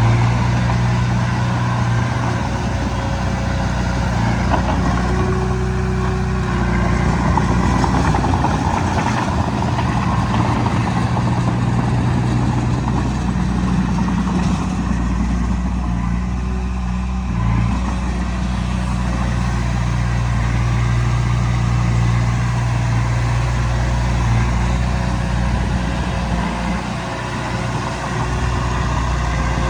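Heavy diesel engine of an earthmoving machine running steadily, its tone and level shifting a little as it works.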